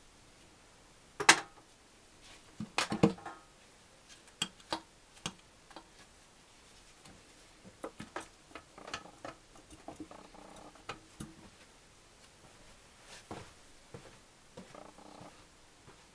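Metal clinks and knocks of engine parts and tools being handled during a motorcycle engine teardown. There is a sharp knock about a second in, a cluster of clanks about three seconds in, then lighter scattered taps and short rattles.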